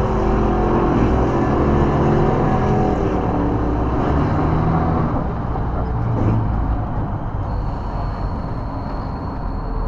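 Cummins 6CTA8.3 turbo-diesel of a 1991 BMY M925A2 military 6x6 truck running as the truck drives slowly, heard from inside the cab; the engine note eases and gets a little quieter about halfway through.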